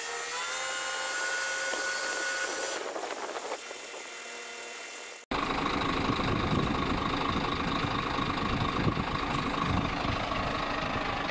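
Sinotruk Howo dump truck's diesel engine running with its tipper body raised hydraulically: a pitched engine sound rises for about half a second, then holds steady and eases off. After an abrupt cut about five seconds in, the engine runs steadily with a louder, rougher sound.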